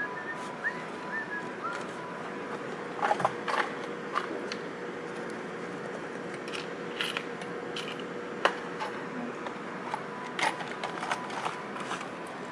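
Metal hand tools clinking and rattling in short scattered bursts as someone rummages through a large tool bag, over a faint steady hum.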